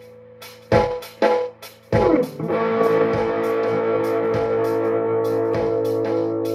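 Electric guitar playing a few short, clipped chords, then striking one chord about two and a half seconds in and letting it ring on, over a steady drum beat.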